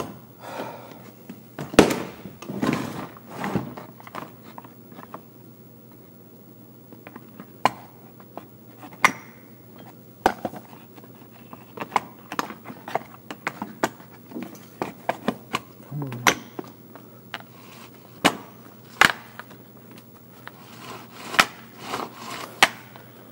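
Irregular plastic clicks, taps and knocks as the recoil starter housing of a Stihl FS 56 RC trimmer is handled, seated onto the engine and screwed down.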